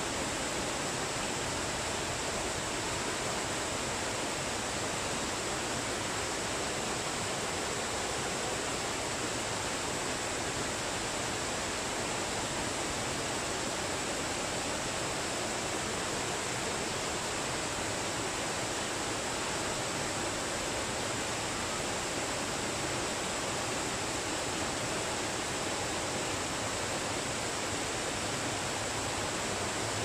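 Waterfall pouring steadily: an unbroken rush of falling and splashing water.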